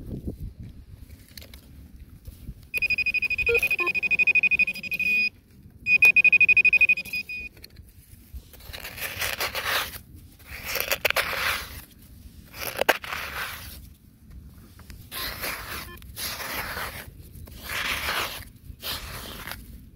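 Metal detector sounding a high, steady tone twice, the first for about two and a half seconds and the second for about a second and a half, signalling metal in the dig hole. After that, hands scrape and dig through loose soil in several short bursts.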